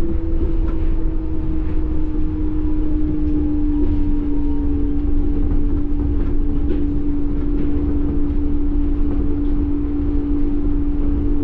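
Yurikamome rubber-tyred automated train running, heard from inside the car. A steady low rumble lies under a whine that drifts slowly lower in pitch.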